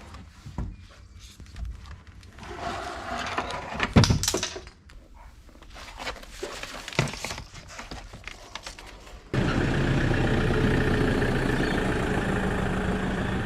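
Scattered knocks, clatters and thuds, the loudest about four seconds in. About nine seconds in it cuts abruptly to the steady running noise of a vehicle on the move, heard from inside the cabin.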